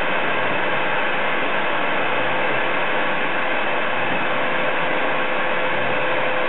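Shop vacuum running steadily, a constant rushing noise with a steady whine, pulling fumes through the hose from a CO2 laser cutter's exhaust duct.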